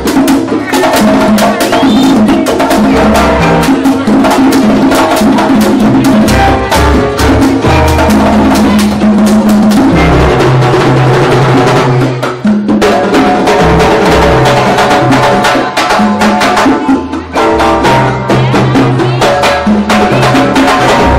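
A live Latin jazz charanga band plays: violins and a seven-string electric upright bass over congas and timbales, with sharp wood-block-like clicks keeping time.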